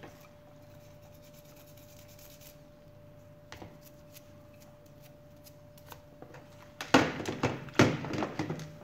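A faint steady hum with a few light clicks, then about seven seconds in, loud rustling, scraping and clicking as a small plastic toy car is handled.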